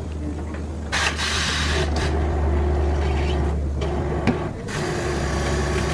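Tyre-changing machine running with a steady low motor hum as a stiff semi-slick tyre is worked onto its rim, with stretches of rubber scraping over the rim and mounting head.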